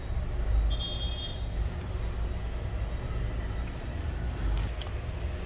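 Steady low background rumble, with a few small sharp clicks about four and a half seconds in as a laptop key's plastic scissor clamp is pushed into place with a hobby knife.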